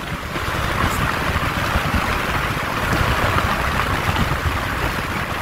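Rushing wind and road noise of cars driving along a highway in a convoy, a steady hiss over an uneven low rumble.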